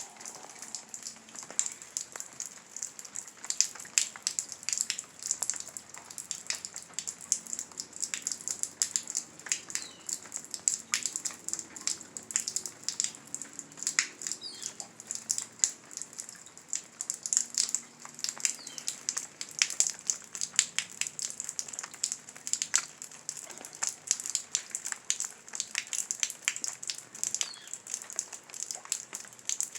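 Heavy rain falling, a dense, steady patter of drops striking a nearby surface with sharp individual splats over a constant hiss.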